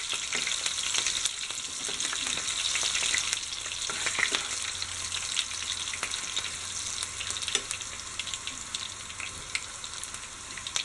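Sliced green chillies sizzling in hot coconut oil in a pan, stirred now and then while they fry until blistered. A steady hiss with scattered crackles and pops.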